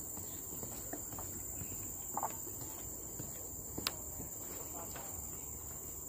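A steady, high-pitched drone of forest insects, with scattered light footsteps on a steel-grated staircase and a sharp click a little before the four-second mark.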